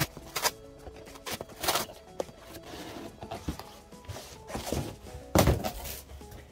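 Cardboard packaging rustling and knocking as the printed product box is handled and pulled out of a cardboard shipping carton, in several short scrapes and bumps, the biggest near the end. Background music plays throughout.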